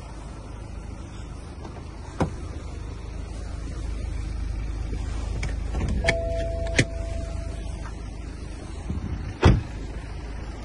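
A BMW F10 5-series being handled at its open driver's door: a sharp click, then two more clicks with a short steady tone lasting under two seconds, and a loud thump about nine and a half seconds in as the door is shut, over a low steady rumble.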